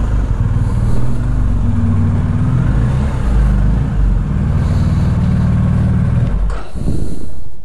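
BMW R 1250 boxer-twin motorcycle engine running at low revs while the bike rolls slowly into a garage. The engine note stops about six and a half seconds in and is followed by a short burst of noise.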